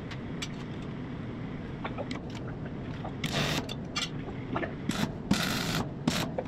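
Small metal clinks and scrapes of a homemade alignment tool and square being fitted against a truck's wheel hub, over a steady low shop hum. A few short hissy bursts come between about three and six seconds in.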